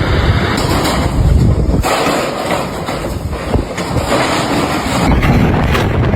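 Strong wind gusting against the microphone: a loud, rushing noise with heavy low rumble that eases for a few seconds midway and then picks up again.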